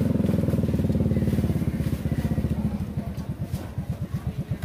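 Small motorcycle engine running at raised revs, then easing off so that its individual firing beats come through slower and clearer, settling toward idle.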